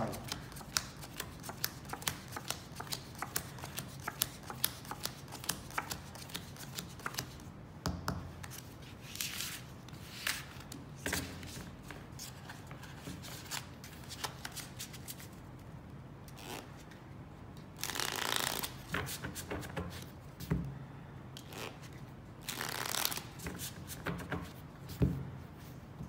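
Playing cards being dealt and handled on a felt table: a run of quick card snaps and flicks, then three longer card swishes spread through the rest.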